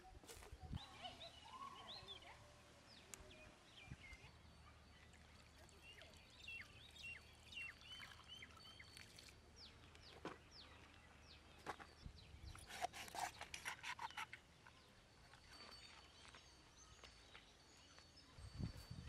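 Faint open-air ambience with birds chirping in short, quick calls, and a few soft rustles and clicks of handling, busiest about two-thirds of the way in.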